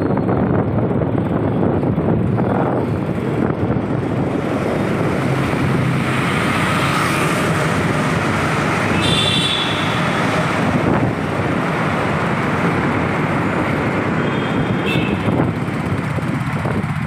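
Steady rushing road and traffic noise from riding along in a moving vehicle, with other vehicles passing on the road.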